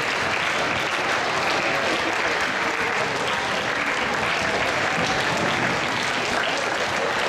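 Large audience of seated students applauding: a steady, sustained round of clapping from many hands.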